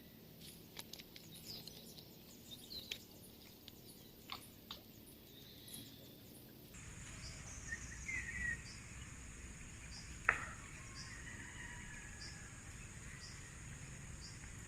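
Quiet outdoor ambience with scattered small clicks in the first few seconds and one sharper click about ten seconds in. From about seven seconds in there is a steady high insect drone with a brief bird chirp.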